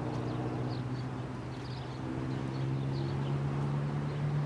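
A steady low motor hum that grows louder and rises slightly in pitch near the end, with short high chirps every second or so.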